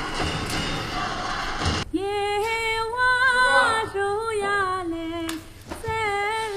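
A woman's voice in long held, sing-song notes, one long phrase and then a short one near the end. It comes after a noisy hiss and clatter in the first couple of seconds.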